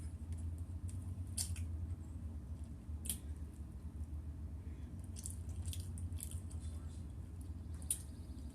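Steady low hum with several faint, short clicks and ticks scattered through it.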